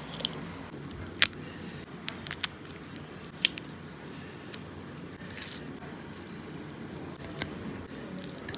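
Close-up eating sounds: biting and chewing a curried prawn, with sharp crunchy clicks in the first half. Wet squishing follows as rice and prawn curry are mixed by hand.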